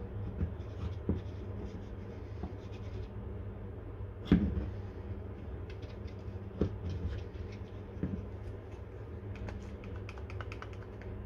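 Hands handling a small plastic squeeze bottle and a small gearmotor on a wooden workbench: light scratches and taps, one sharper knock about four seconds in, and a flurry of small clicks near the end, over a steady low hum.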